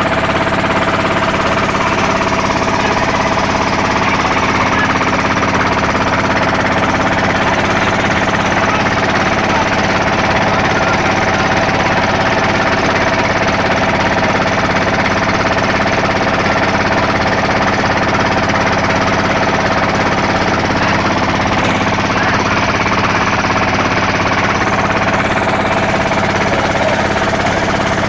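Fishing boat's diesel engines running steadily and loudly, a fast even clatter under a constant hum.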